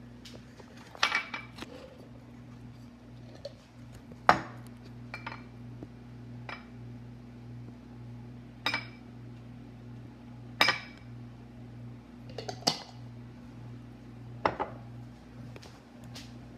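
A spoon clinking against a glass jar and small glass bowl as tomato sauce is scooped out: about eight sharp, ringing taps one to two seconds apart, over a steady low hum.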